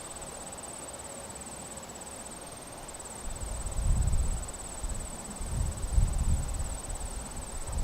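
Crickets trilling steadily in a high, finely pulsed band. From about three seconds in, low rumbles come and go over it, louder than the insects.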